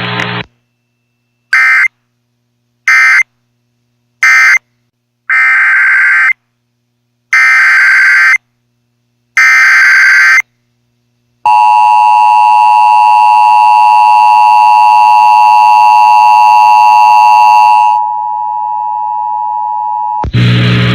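Emergency alert data tones on a weather radio broadcast. First come three short screeching data bursts that mark the end of one warning, then three longer bursts that code the next warning. A loud steady alert tone follows for about six seconds, then a quieter steady tone, and noise starts near the end.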